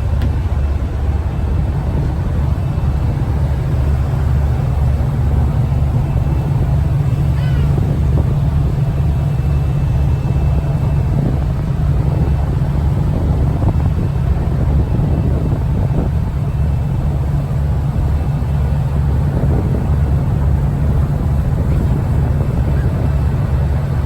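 River passenger motor ship's diesel engine running steadily under way: a constant low drone.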